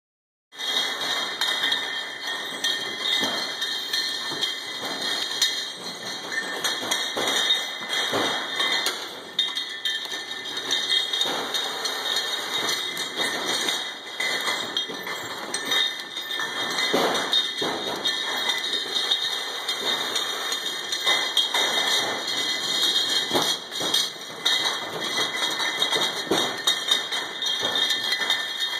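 Automatic round-bottle labelling machine and its conveyor running, with a steady high-pitched whine and irregular knocks and clinks as bottles bump along the line and through the labelling head.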